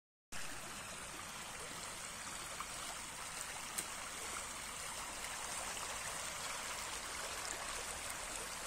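Shallow stream babbling over stones and leaves: a steady rush of running water.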